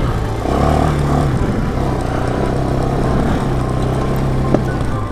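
Bashan 250 ATV engine running steadily under throttle while riding, heard from the rider's seat. The engine note dips briefly just after the start and picks up again, and a single sharp knock comes about four and a half seconds in.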